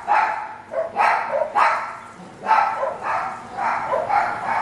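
A dog barking repeatedly, in short separate barks about two a second.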